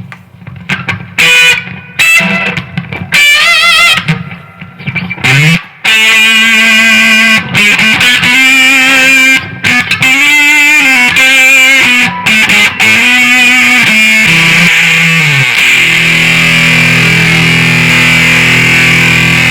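Electric guitar through a high-gain fuzz pedal into a Marshall DSL40C amp, played loud with heavy distortion. It starts with short bent and vibrato notes and dead silence between them, the noise gate cutting the hiss. From about six seconds in comes a continuous lead line, ending in a long held chord.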